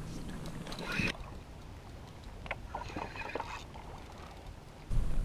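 Water sloshing against a kayak hull with wind on the microphone, quieter after about a second and louder again near the end, with a few light clicks in the middle from the spinning reel as a fish is reeled in.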